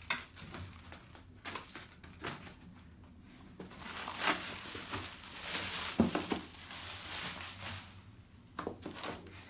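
Rustling, crinkling and light knocking of cardboard boxes and plastic packaging being handled and taken out of a game box, with a sharper knock about six seconds in.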